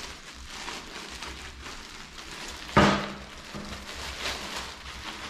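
Clear plastic packaging bag crinkling and rustling irregularly as a new snowboard binding is unwrapped from it, with one sudden loud crackle just under three seconds in.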